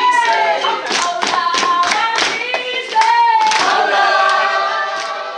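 A group of voices singing together unaccompanied, with hand clapping along, fading somewhat near the end.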